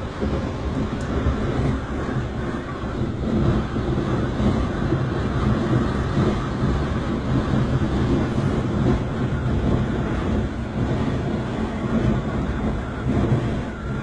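Typhoon wind and rain against a high-rise flat, heard from inside through the windows: a loud, steady rumbling rush that surges and eases.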